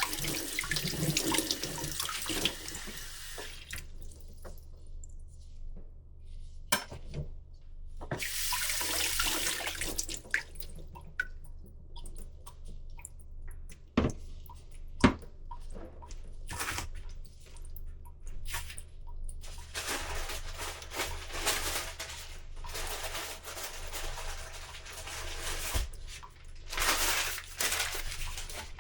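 Water running from a tap in several spells, stopping and starting, with a few sharp knocks and clicks in the pauses, two of them louder about halfway through.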